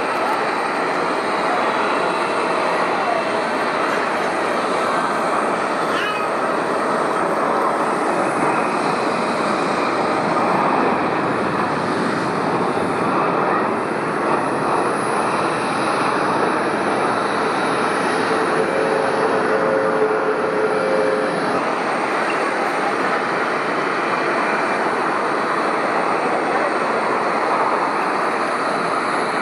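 Steady rushing noise of jet airliner engines at the runway, holding at one level throughout.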